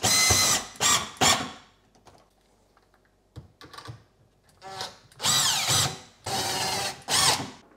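Makita cordless drill-driver driving screws through the dishwasher's fixing holes into the cabinet. The motor whines in a few short bursts at the start, then in two longer runs in the second half, the first of them dropping in pitch.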